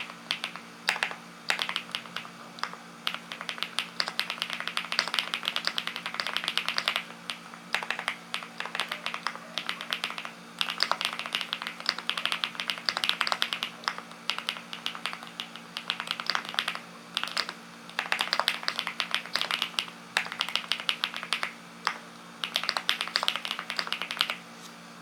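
Linky 87 mechanical keyboard being typed on: rapid runs of clacking keystrokes in bursts of a second or two, with short pauses between them, over a faint steady hum.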